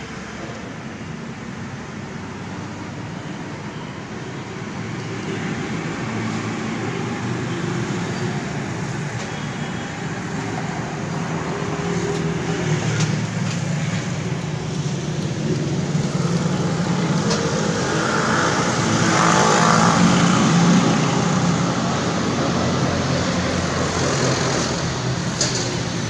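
Bull Power 565 Turbo tractor's turbocharged diesel engine running steadily. It gets gradually louder to a peak about twenty seconds in, then eases back.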